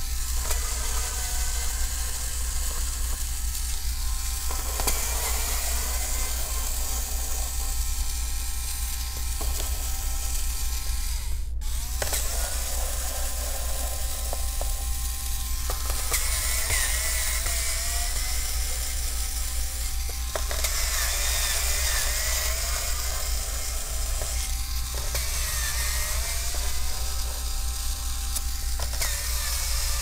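Small cordless electric screwdriver running as it backs out the Phillips screws of a laptop's bottom cover, its motor pitch shifting now and then.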